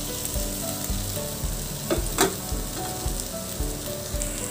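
Pre-fried cauliflower florets and potato pieces sizzling in hot oil and spice masala in a non-stick kadai as they go in and are turned, with one sharp knock about two seconds in.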